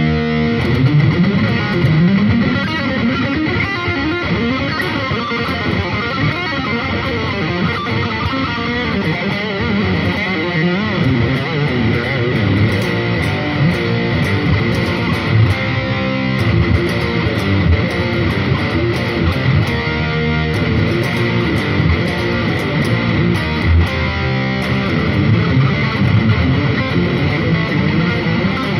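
Electric guitar playing a continuous riff, its low notes often sliding up and down in pitch.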